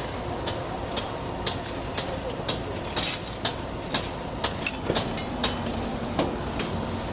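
Engine running steadily under a string of sharp metallic knocks and scrapes from work on a concrete slab pour, about two knocks a second at first, then irregular, with a louder scrape about three seconds in.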